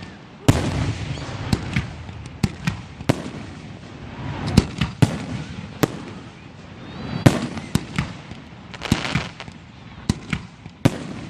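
Fireworks going off: many sharp bangs and pops at irregular spacing, some in quick clusters. Stretches of hissing noise come shortly after the start and again near the end.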